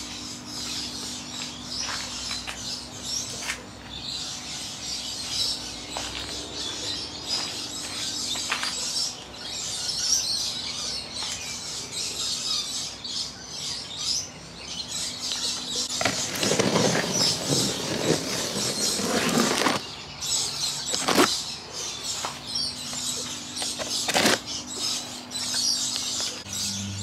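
Birds chirping steadily over the steady hum of an air-conditioning unit. About two thirds of the way through a few seconds of louder rustling noise cover the hum, followed by a couple of sharp clicks.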